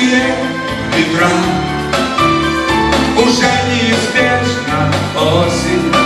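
Live pop-rock band playing: electric guitars, bass guitar and keyboards in a passage between sung lines.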